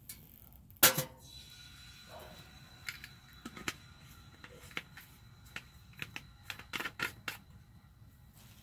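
A steel camp cup set down on the top of a Winnerwell Woodlander wood stove: one sharp metallic clank about a second in, with a faint ringing after it. Scattered sharp clicks and pops follow from the burning wood fire in the firebox.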